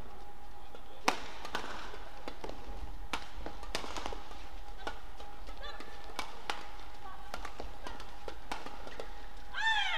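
Badminton rackets striking the shuttlecock during a fast doubles rally: a series of sharp hits, the loudest about a second in, with shoe squeaks on the court. A short pitched squeal near the end, over a faint steady hum.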